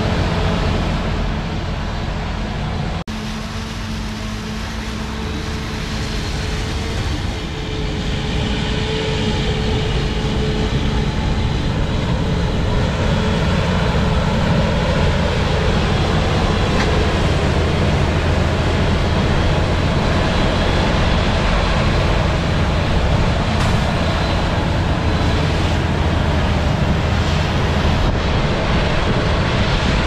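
Self-propelled forage harvesters running under load, chopping standing corn and blowing the silage into a truck alongside, a steady heavy machinery drone. The sound changes abruptly about three seconds in.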